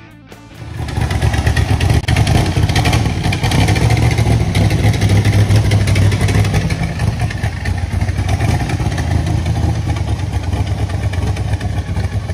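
A 1967 Corvette Stingray's L88 427 big-block V8 running loud with a steady low rumble as the car pulls out and drives. It comes in about a second in, just as the last of the intro music fades.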